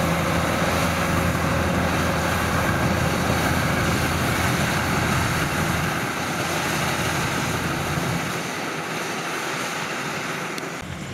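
Kubota combine harvester running while harvesting rice: a steady diesel engine hum under the rushing noise of the threshing machinery. The low engine hum weakens and the sound fades somewhat from about eight seconds in.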